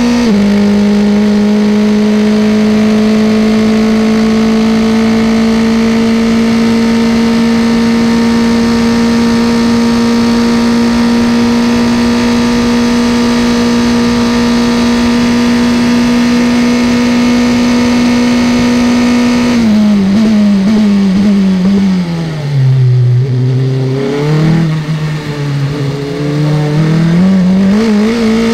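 Onboard sound of a Formula 3 race car's engine. It is held near full revs on a straight after an upshift just after the start, its pitch slowly creeping up with speed. About two-thirds of the way through it drops through a quick run of downshifts under braking to a low, then climbs again as the car accelerates out of the corner.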